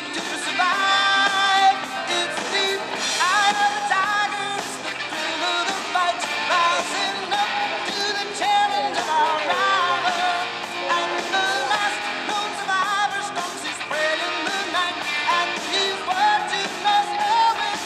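A song with a lead singer over instrumental backing, playing continuously.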